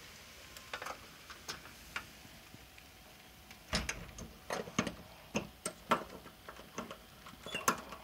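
Handling of a front door's metal doorknob and latch: a few faint clicks, then from about halfway a quick irregular run of sharp clicks and knocks.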